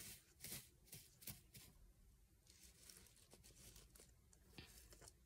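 Near silence, with faint rustling and crackling of wood-shaving bedding as a hand places food by a plastic bowl in a hamster cage. The rustles come mostly in the first two seconds, then thin to the odd soft tick.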